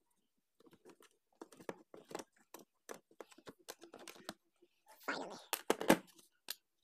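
Pliers working on the overload protector fitted in the plastic base of a mixer grinder, loosening it for removal: a run of small metal-on-plastic clicks and scrapes, with a louder cluster of clicks and handling rustle about five to six seconds in.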